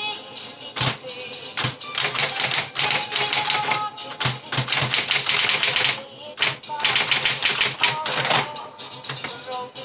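Facit 1820 electromechanical office typewriter typing in fast runs of key strikes, broken by short pauses.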